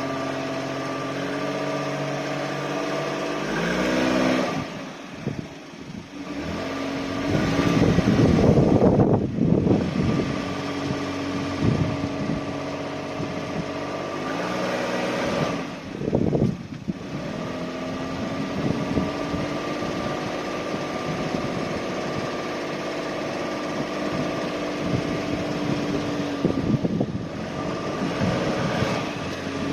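Suzuki Spacia (MK53S) kei car driving at low speed, with a steady whine of several tones that shift in pitch as it goes: the abnormal noise it makes at low speed.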